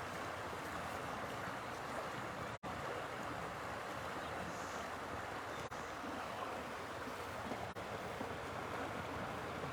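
Steady outdoor rushing noise with no distinct events, broken by three momentary dropouts.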